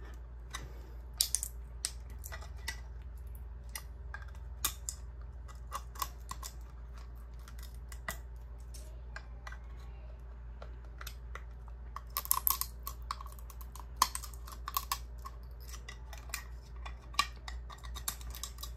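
Small metal blade picking, scraping and snapping leftover support pieces off a 3D-printed plastic goggles frame: irregular small clicks and scrapes, busiest about twelve to fifteen seconds in, over a steady low hum.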